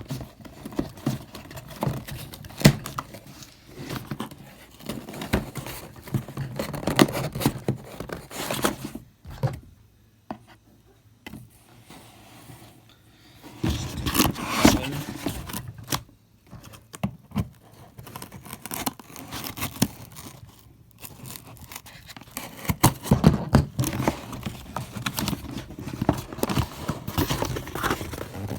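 A knife stabbing, cutting and scraping at a cardboard box, in irregular scrapes and clicks, with a quieter lull about a third of the way in.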